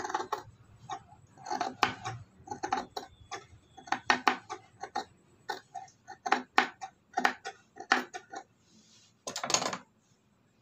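Tailor's scissors snipping through cloth in a quick, irregular run of crisp metal snips, then a brief louder scrape of the fabric a little after nine seconds in.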